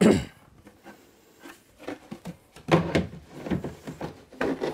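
A Tactical Walls concealment insert being picked up and pushed into a hole cut in drywall for a test fit. A single clunk comes right at the start, then a run of knocks and scrapes over roughly the last two seconds.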